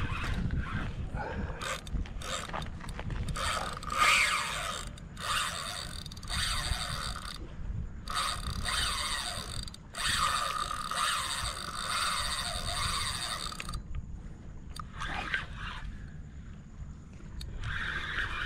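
Spinning reel being worked against a hooked snook: the gears whirr and the drag clicks in stretches of one to three seconds, with short breaks, as line goes out and comes back in, and a quieter spell near the end.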